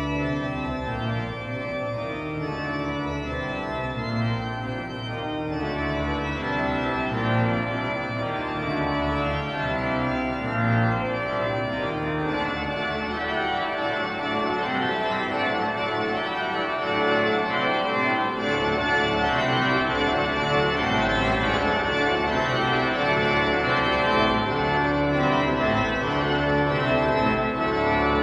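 Organ music: sustained chords over a moving bass line, growing fuller in the upper range about two-thirds of the way through.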